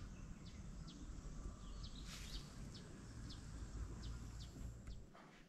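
Faint, short, high bird chirps, several scattered through, over a low rumble that cuts off about five seconds in.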